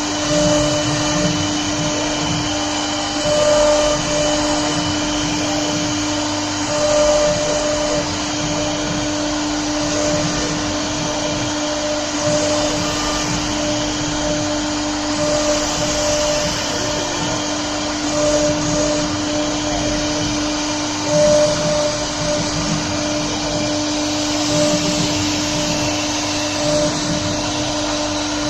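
Spindle of an LR-1325E CNC router running steadily while its bit cuts and engraves MDF. A constant whine sits over the rasping cutting noise, which swells briefly every few seconds as the tool moves through the board.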